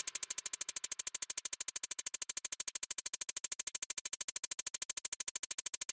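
Rapid, even electronic pulsing, about a dozen pulses a second at a steady level, from the video's synthesized background music.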